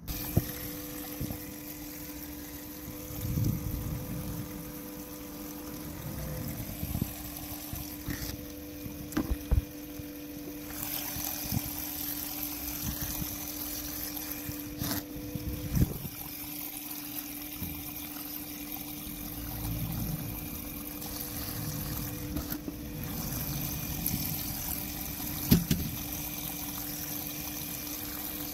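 Water running down a small clean-up sluice over its riffle mat, with a steady hum from the small water pump feeding it. A few sharp knocks sound, the loudest near the end.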